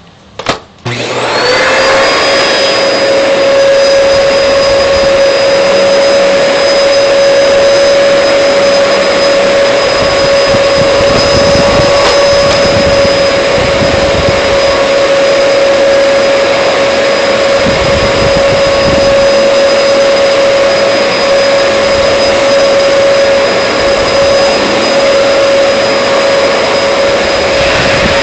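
Vacuum cleaner switched on with a sharp click, its motor spinning up over about a second to a loud steady whine, then running unchanged.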